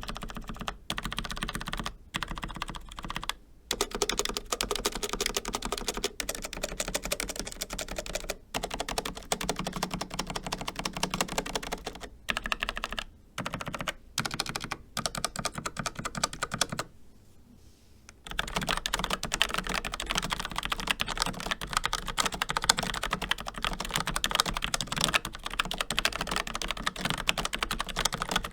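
Fast continuous typing on a Logitech MX Mechanical keyboard with Kailh low-profile brown tactile switches: a dense stream of key clicks broken by a few brief pauses, the longest about seventeen seconds in.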